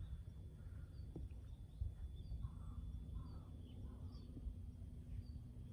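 Quiet outdoor ambience: a low, uneven wind rumble on the microphone with faint, short bird chirps scattered through it.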